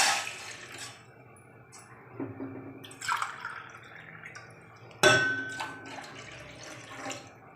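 The end of water being poured from a tumbler into a pan, then a few drips. About five seconds in comes a sharp clink with a short ring, a vessel knocked or set down.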